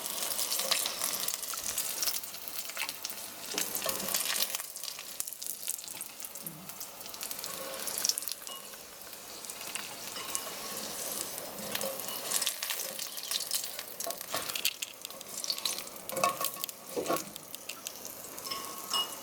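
Pieces of green sunfish frying in hot oil: a steady crackling sizzle with many small pops.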